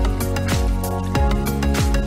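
Background music with a steady beat: deep kick drums that fall in pitch, quick high percussion and held chords.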